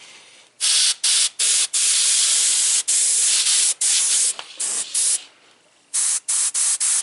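Airbrush spraying paint in short bursts of high hiss, switching on and off sharply as the trigger is worked, while highlight hot spots are dabbed in. A lull comes about five seconds in, then several quick short bursts near the end.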